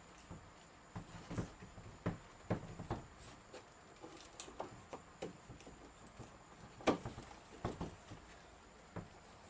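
Irregular knocks, taps and rustling as 10-3 electrical cable is pulled by hand through holes drilled in wooden wall studs, the cable slapping and rubbing against the wood. The sharpest knock comes about seven seconds in.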